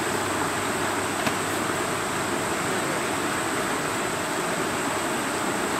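Muddy floodwater rushing past in a steady, even torrent.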